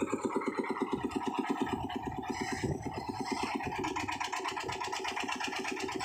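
Concrete mixer's engine running steadily with a fast, even thudding beat of about ten beats a second while its drum mixes concrete.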